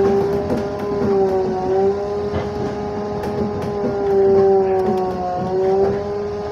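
LiAZ-52803 trolleybus heard from inside while it drives: a steady electric whine from its traction equipment with a few fainter higher tones, dipping slightly in pitch twice, over a low rolling rumble.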